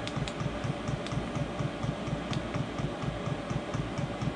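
A Chinese 5 kW diesel parking heater running at full: a rhythmic low pulsing with a steady hum, and the fuel pump ticking evenly several times a second.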